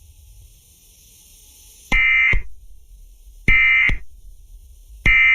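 Emergency Alert System end-of-message data bursts: three short, harsh, buzzing digital bursts about a second and a half apart, signalling the end of the alert. Faint static hiss comes before the first burst.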